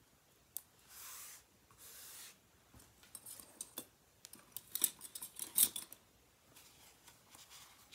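Backing papers peeled off adhesive foam dimensionals, two short hisses about a second apart, followed by small clicks and rustles of cardstock being handled, loudest about five and a half seconds in.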